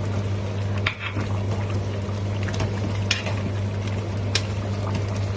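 A spoon stirring a thick chicken stew in a metal pot, wet and sloshing, with a few sharp knocks against the pot. A steady low hum runs underneath.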